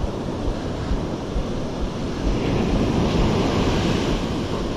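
Ocean surf breaking on a sandy beach, swelling louder a little past halfway as a wave crashes, with wind buffeting the microphone.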